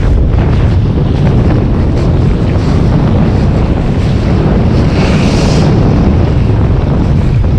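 Strong wind buffeting the microphone, a steady low rumble, with a brief higher hiss about five seconds in.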